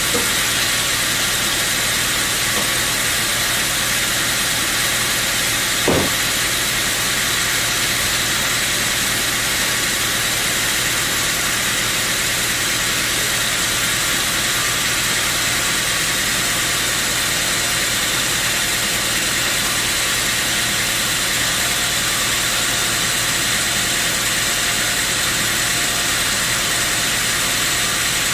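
Sawmill machinery running steadily with a constant hiss and low hum, and a single knock about six seconds in.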